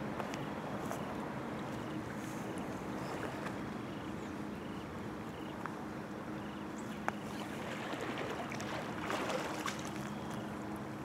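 Steady outdoor background noise with a faint low hum, and a brief rough splash about nine seconds in, as a hooked carp is drawn to the landing net.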